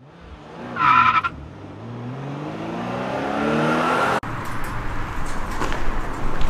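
A short high squeal about a second in, then a car engine revving steadily higher for about three seconds before cutting off abruptly, followed by a rough low rumble with scattered clicks.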